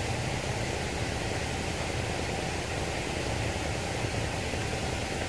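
Steady, even rushing noise with no separate events in it.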